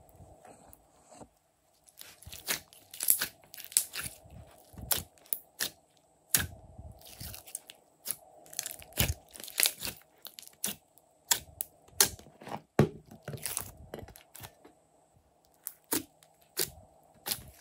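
Glossy slime being stretched, squeezed and poked with the fingers, making irregular sharp wet clicks and pops.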